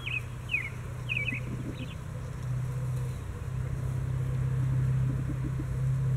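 A steady low motor hum that grows a little louder about two and a half seconds in, with a small bird giving several quick, short descending chirps in the first two seconds.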